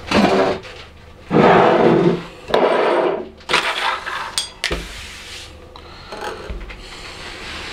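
Several rough rubbing and scraping strokes on a tabletop, loudest in the first five seconds, from glass jars and a bottle being slid across the table and a lemon being rolled under the hand on a plastic cutting board.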